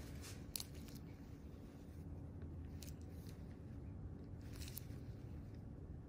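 Faint steady low hum with about three brief soft crackling rustles of gloved fingers pressing and shifting on the skin.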